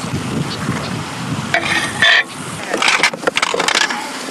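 Rustling and small clicks of hands handling fly-tying materials and tools at a vise. There is a brighter rustle about one and a half to two seconds in.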